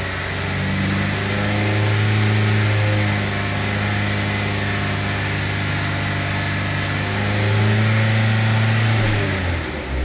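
Vauxhall/Opel Corsa D 1.2 four-cylinder petrol engine held steadily at about 3,000 rpm, picking up slightly about seven seconds in, then the revs dropping back near the end. The engine is running lean (P0171, large positive fuel trims) because the evap purge solenoid valve is stuck open, drawing in air from the fuel tank.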